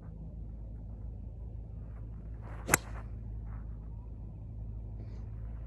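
A golf swing: a short swish of the hybrid club as it comes through, then one sharp crack as the clubface strikes the ball, a little under three seconds in.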